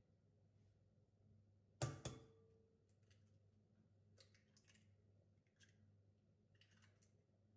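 Egg knocked twice against the rim of a glass mixing bowl, the glass ringing briefly, followed by lighter clicks and crackles of the shell being pulled apart over the bowl.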